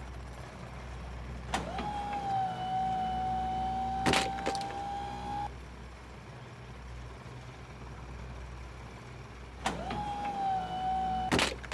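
A steady, machine-like whine with overtones, heard twice, for about four seconds and then for about a second and a half, each starting with a sharp click. Further sharp clicks of plastic Duplo bricks being dropped into a plastic toy dump truck's bed.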